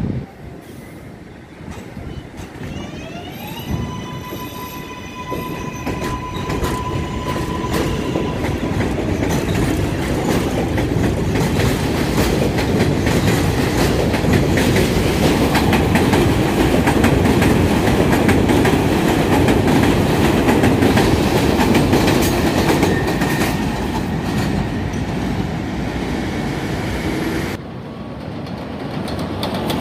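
A New York City Subway R188 train pulls out of an elevated station. Its electric traction motors whine upward in rising steps as it starts, then the rumble and clatter of steel wheels on the elevated track build up loud as the cars pass close by. The sound drops suddenly near the end to a quieter, distant train.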